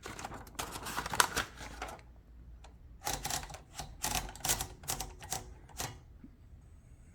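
1926 L.C. Smith & Bros. No. 8 typewriter's mechanism clicking as a sheet of paper is loaded and the platen turned. There is a fast run of clicks for about two seconds, a short pause, then a second series of sharper separate clicks.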